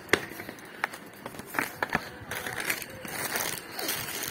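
Handling of cardboard boxes: a few sharp knocks and taps, then a steady crinkling and rustling of packaging as clothes are lifted out of an opened box.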